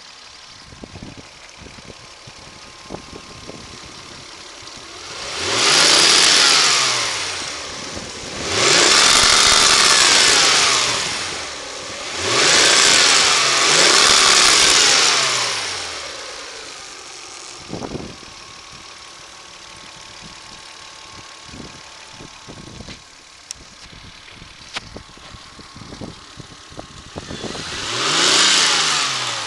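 Mazda Xedos 6's 2.0 V6 24-valve engine idling with a clatter, revved up and let fall back several times, twice in quick succession. The owner suspects a worn bearing shell, the water pump or the rebuilt alternator, and the engine has less power than it should.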